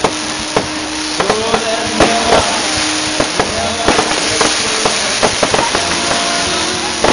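Fireworks going off in quick succession, about two sharp bangs a second, over a steady wash of crowd noise.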